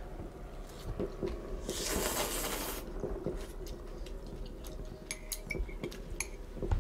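Ramen noodles slurped and chewed, with one long hissing slurp about two seconds in. Metal utensils clink lightly against a metal pot lid used as a plate, several times near the end.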